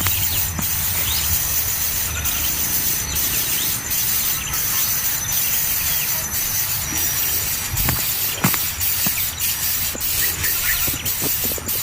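Nestling birds giving short, thin, high squeaking begging calls, over a steady high hiss.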